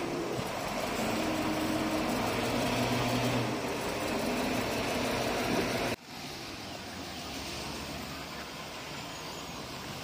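Diesel engine of heavy earthmoving machinery running steadily. About six seconds in the sound breaks off suddenly and a quieter, similar engine sound carries on.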